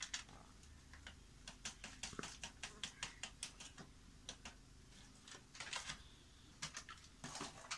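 Milk powder being shaken out of a plastic packet into a bowl: a faint, irregular run of light taps and crinkles, about three or four a second, bunching together twice near the end.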